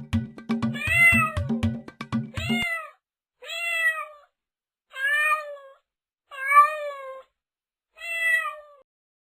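A cat meowing six times at even intervals, each meow rising then falling in pitch. A rhythmic music track with a steady beat runs under the first two meows and cuts off about two and a half seconds in.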